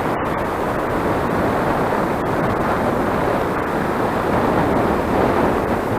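Loud, steady wind noise buffeting the microphone of a camera riding along on a moving bicycle.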